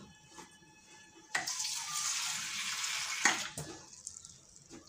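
Water pouring in a steady stream, starting suddenly about a second in and lasting about two seconds before tapering off.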